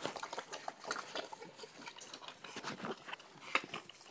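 Pigs eating slop from a bowl: a quick, irregular run of chewing and smacking sounds.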